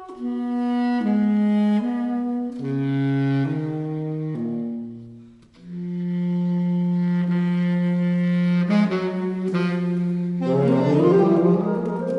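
Saxophone trio of alto, tenor and baritone saxophones playing classical chamber music: a passage of moving chords, a brief break about five and a half seconds in, then long held chords over a low baritone note with a quick run of notes near the end.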